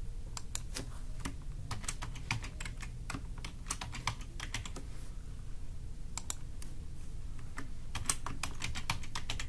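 Typing on a computer keyboard: irregular key clicks in short runs, with brief pauses between runs.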